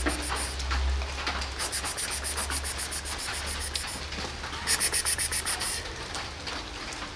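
Steady rain falling on wet pavement, with a fast, even patter of dripping that grows loudest about five seconds in.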